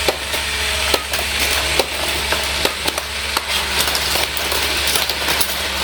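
Battery-powered Plarail toy train and Tomica crossing set running: a steady whirring rattle of small toy motors and gears on plastic track, with a sharp plastic click about once a second.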